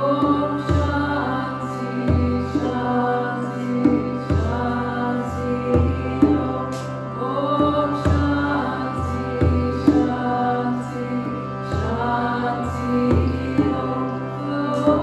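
A woman's voice singing a slow chant-like melody while she beats a hand-held frame drum in a slow pulse, roughly one stroke every second or so, over a steady sustained drone.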